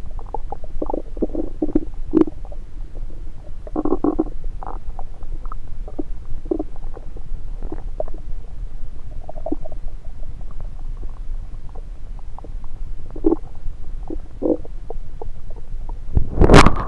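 Stomach and bowel gurgles heard through a stethoscope pressed on the belly. Short, scattered gurgles and squeaks come over a steady low rumble, with a loud, harsh burst near the end.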